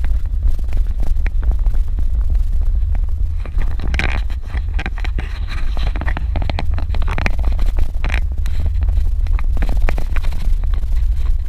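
Suzuki Jimny driving on a dirt road: a steady low rumble with frequent clatters and knocks from the rough surface.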